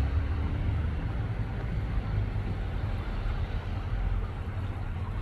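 A steady low rumble of outdoor background noise with no distinct events.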